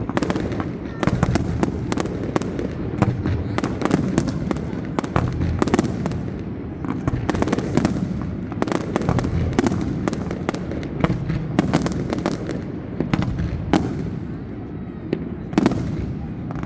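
Fireworks display: a fast, irregular string of sharp bangs and crackles over a continuous low rumble of shell bursts.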